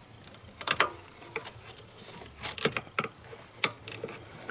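Irregular metallic clicks and taps from a quarter-inch ratchet, extension and 10 mm socket being fitted onto a hidden bolt head.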